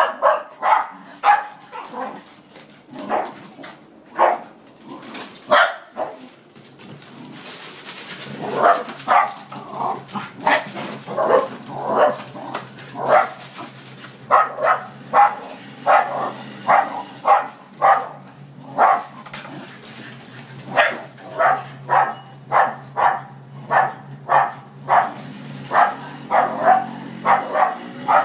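Scottish terriers barking again and again in quick, sharp barks, often about two a second, at a noisy delivery motorbike. From about eight seconds in, a steady low engine hum from the motorbike runs under the barking.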